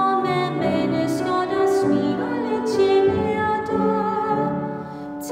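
A woman singing a hymn with piano accompaniment.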